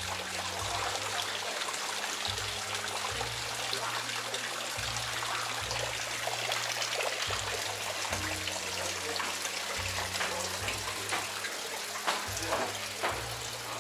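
Steady trickling, splashing running water. Under it runs background music with a slow, stepping low bass line, and a few sharp clicks come near the end.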